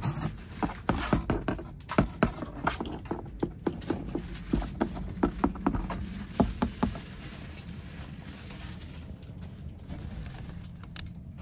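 Cardboard box being scratched and knocked as a cat scrabbles about inside it: quick, irregular taps and scrapes that thin out after about seven seconds, over a steady low hum.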